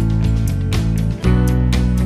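Background music with strummed guitar chords over a steady bass, with a brief break about a second in.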